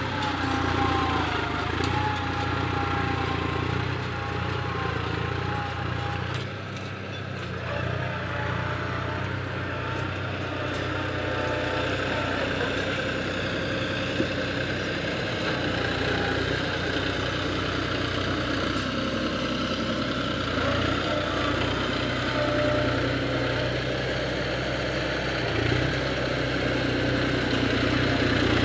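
Farm tractor's diesel engine running steadily under load as it pulls a plough through heavy soil.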